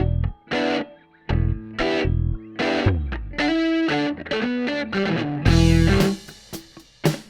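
Distorted electric guitar on a D'Angelico, played through effects in short, choppy chord stabs and riff phrases at a fast tempo, with deep low notes under the chords and a longer ringing chord near the end.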